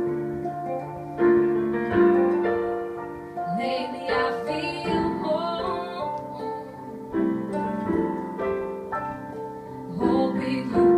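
Live piano and female vocal music: slow piano chords struck about every second or so and left to ring, with a woman's voice singing a wavering held line in the middle.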